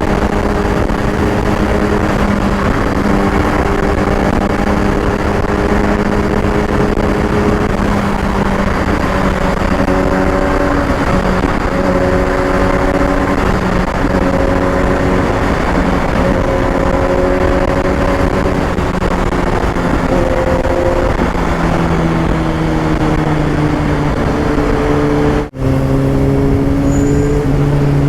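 Kawasaki ZX6R inline-four engine running at road speed under heavy wind rush on the rider's microphone. About three-quarters of the way through the engine note drops lower as the bike slows, and near the end the sound cuts out for a split second.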